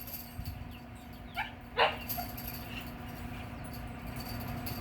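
The neighbour's dog barking twice in quick succession about a second and a half in, the second bark louder, over a faint steady hum.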